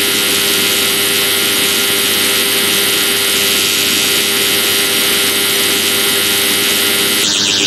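Black MIDI played on a General MIDI synthesizer's Piano 1 sound, so many notes at once that they merge into a loud, steady wall of noise. Just before the end the upper range changes abruptly into a fast rippling pattern.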